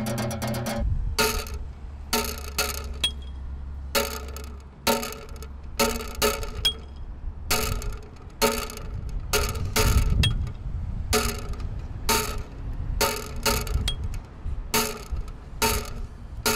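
Hands clapping and slapping together in a quick, uneven rhythm of sharp claps, about two a second, as two people run through a handshake routine, with a low rumble underneath.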